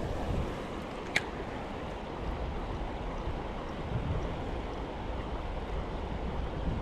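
Stream water rushing steadily, with wind buffeting the microphone in low gusts. A single sharp click about a second in.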